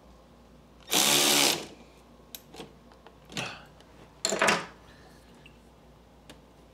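A hand ratchet with a socket on an extension clicking rapidly for about half a second, about a second in, as it works a hose clamp. Two shorter, softer rattles follow a couple of seconds later.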